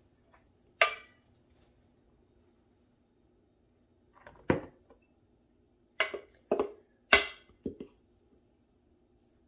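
Metal measuring cup knocking and clinking against a glass flour canister and a mixing bowl while flour is scooped and tipped in. One sharp knock about a second in, then a run of five or so knocks and clinks from about four and a half to eight seconds, over a faint steady hum.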